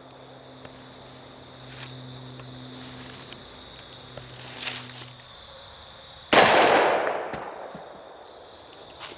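A single .357 Magnum shot from a Ruger GP100 revolver a little over six seconds in, sharp and loud with a long echoing tail; a faint steady high tone runs underneath.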